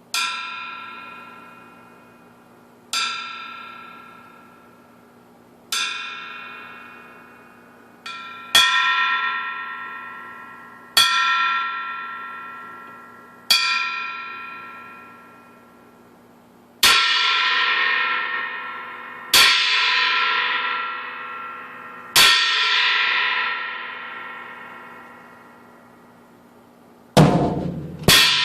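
Homemade 16-inch heavy brass china cymbal, cut down from a cracked Meinl HCS 20-inch ride, hammered into an inverted china shape and drilled with 75 holes, struck nine times one hit at a time, about every two and a half to three seconds, each hit ringing out and fading. The last three hits are louder, fuller crashes, and near the end a drum kit comes in playing a beat.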